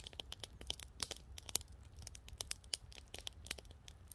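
Wood campfire crackling: irregular sharp snaps, several a second.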